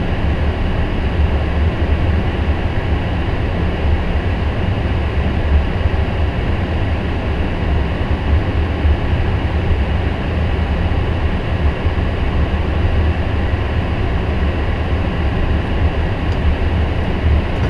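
Cockpit noise of a Boeing 777-300ER taxiing slowly in to its stand: a steady low rumble with faint steady hums over it, from the idling engines and air conditioning.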